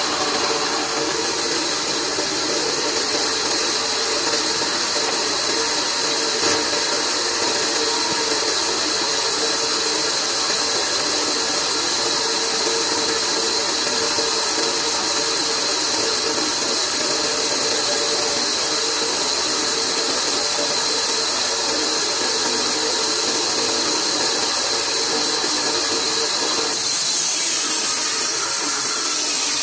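Band saw running steadily, a constant motor hum under a bright hiss. The sound changes near the end as a wooden plank is fed toward the blade.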